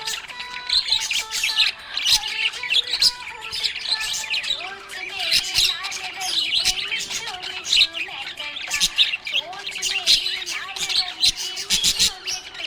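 A group of budgerigars chattering: dense, continuous warbling chirps and squawks that overlap throughout.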